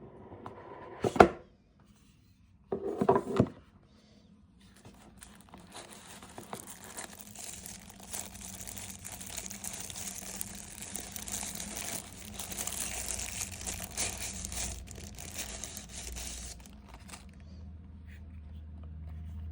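Camera packaging being unwrapped: crinkling and tearing of wrapping, with two short louder bursts in the first few seconds, then a long stretch of continuous crinkling that dies away near the end.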